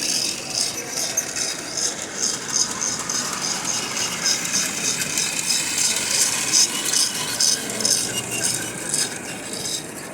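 Lionel Rio Grande toy train set running on its track, with rhythmic clicking at about three clicks a second over a steady background hum of a hall.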